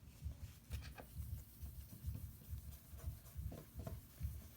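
A cloth wiping down an iPhone with rubbing alcohol: faint, irregular rubbing with soft handling bumps.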